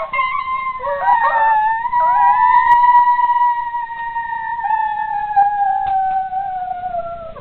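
A person's long, high-pitched wail, held for several seconds and sliding slowly down in pitch, with a shorter second cry about a second in.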